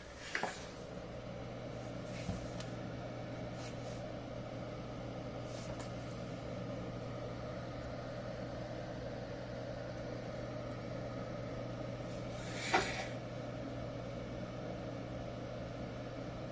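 A steady low electrical or machine hum with a faint whir, broken by a few soft clicks just after the start and one sharper click about thirteen seconds in.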